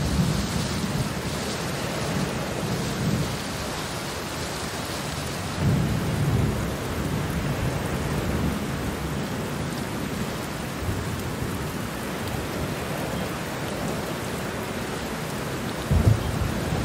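Steady heavy rain with rolling thunder: low rumbles swell at the start and again about six seconds in, and two sharper low claps come near the end.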